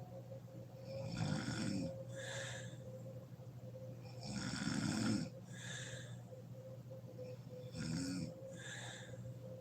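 A sleeping woman snoring: three snores about every three and a half seconds, each followed by a shorter, breathy breath.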